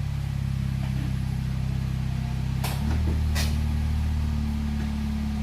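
Honda City's four-cylinder engine running at idle through an aftermarket HKS Jasma bullet muffler, a steady low hum. Nearly three seconds in, the note drops to a lower pitch, with two short clicks.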